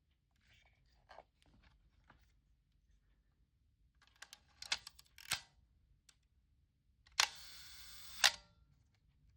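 Topcon Super D mechanical 35mm SLR being worked: light handling and winding clicks, a sharp pair of shutter-and-mirror clicks about five seconds in, then a slow-speed release near seven seconds: a loud click, about a second of steady mechanical buzz from the timing gears while the shutter stays open, and a second loud click as it closes.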